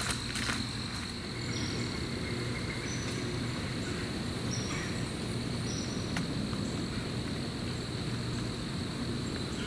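Insects trilling in one steady high tone over a low, even rumble, with a few footsteps crunching on dry leaves at the start.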